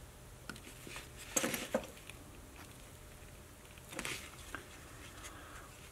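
Faint, short scratches and taps of a hand tool working a small basswood carving, in two brief clusters about a second and a half in and about four seconds in.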